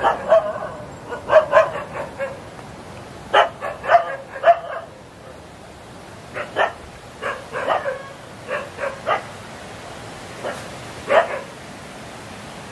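A dog barking repeatedly, in groups of a few short barks with pauses between.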